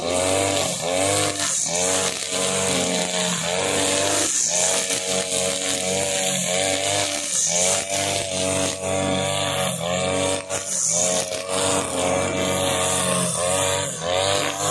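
Husqvarna 542RBS backpack brush cutter's two-stroke engine running at high revs with its nylon trimmer line cutting grass. The engine pitch dips and recovers about once a second as the line swings through the grass.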